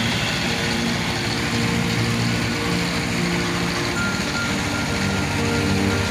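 Colt Diesel 100 PS engine driving a well-drilling rig, running steadily.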